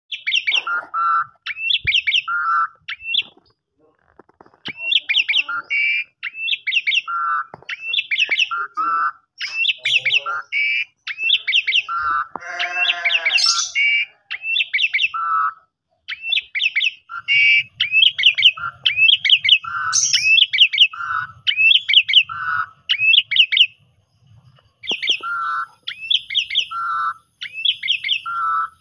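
Javan pied starling (jalak suren) singing its 'kopi-kopiko' song: a short phrase of quick high notes dropping to a lower note, repeated again and again with brief gaps. About twelve seconds in it gives one longer, lower call.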